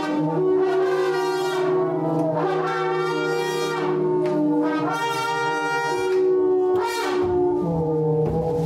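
A small group of brass horns playing long held notes together, with a low note sustained underneath while the upper notes shift every second or two.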